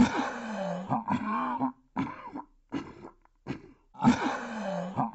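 A person's voice in short pitched vocal phrases with brief gaps. The same opening phrase comes again about four seconds in, like a looped audio clip.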